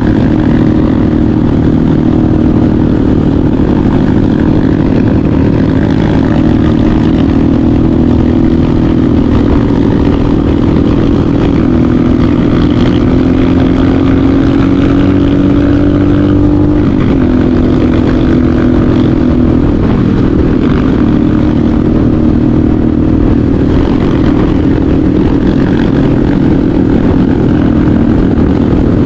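Motorcycle engine running while the bike is ridden. The engine note holds fairly steady and creeps up in pitch, drops sharply about halfway through, then picks up again a few seconds later.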